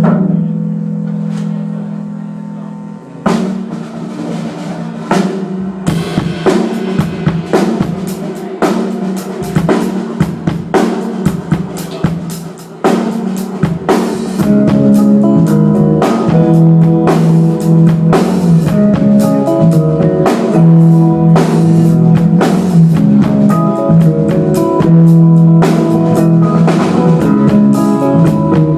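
Rock band playing a song's instrumental intro: a held chord fades away, drums come in about three seconds in, and the whole band enters louder at about fourteen seconds.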